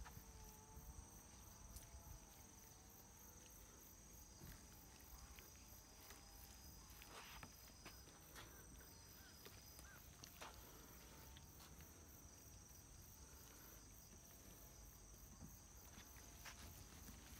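Near silence: faint outdoor ambience with a steady high-pitched insect drone and a few faint soft ticks.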